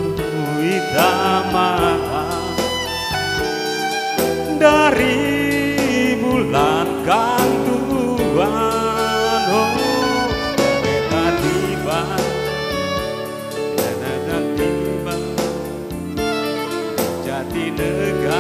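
Live band music: a violin carries a wavering melody over keyboard chords.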